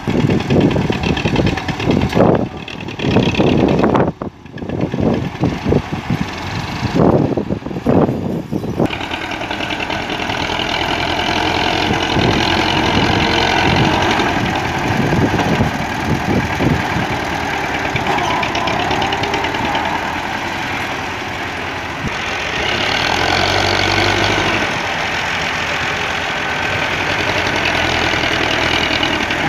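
MTZ Belarus tractor's diesel engine running while it works a front loader through heaps of earth. The sound is uneven and choppy for the first several seconds, then steady, and the engine swells louder for a couple of seconds about three-quarters of the way through.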